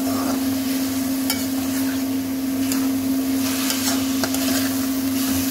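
Vegetables and chicken being stir-fried in a metal pan: a metal spatula scraping and knocking against the pan a few times over a steady sizzle, with a steady low hum underneath.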